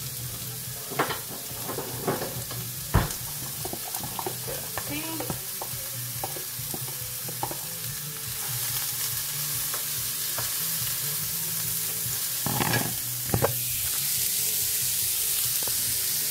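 Chopped red onion sizzling in olive oil in a frying pan, the sizzle growing louder about halfway through, with scattered knocks and taps of utensils against the pan.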